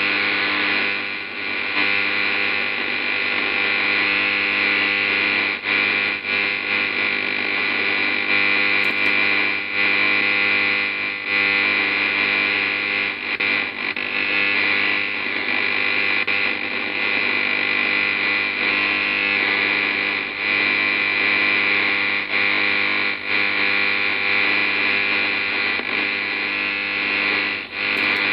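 Interference received on an Icom IC-756PRO III HF/50 MHz transceiver and heard through its speaker: a steady, harsh buzz of several steady tones over loud hiss, with brief dips now and then.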